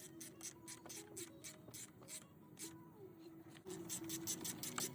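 Socket ratchet clicking in quick runs as the rocker bolts are turned down on a Honda Rancher 350 engine, with two short pauses between strokes. A faint steady hum runs underneath.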